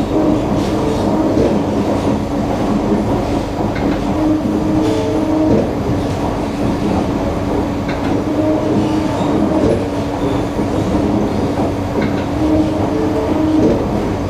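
Interior noise of a moving Singapore MRT train: a steady rumble of the wheels on the rails. Over it run humming tones from the electric traction drive, which change about five seconds in and again near the end, with occasional clicks from the running gear.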